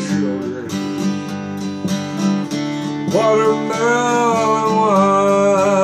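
Acoustic guitar strummed in a steady rhythm, with a man's voice joining about three seconds in, singing a long, held line over it.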